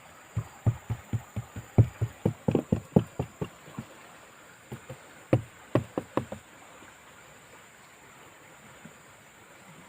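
A run of short, sharp knocks, about three or four a second, then a few louder ones about five to six seconds in, stopping after that: tapping on a boat hull during a fibreglass repair.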